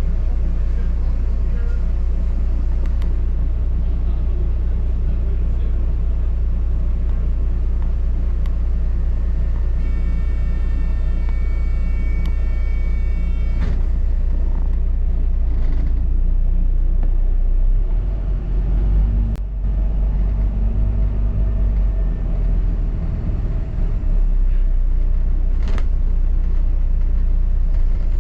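London double-decker bus running, heard from on board as a steady low engine and road rumble that shifts in note a little past halfway. About ten seconds in, a high steady electronic tone sounds for nearly four seconds.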